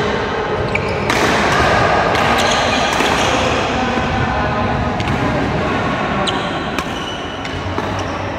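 Badminton doubles rally: sharp racket strikes on the shuttlecock about once a second, with shoes squeaking on the wooden court floor, over the background noise of the hall.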